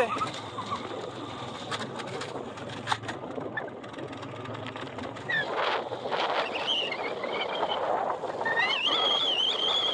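Strong, gusting wind, with a thin, high, wavering whistle that comes in briefly about six seconds in and again near the end.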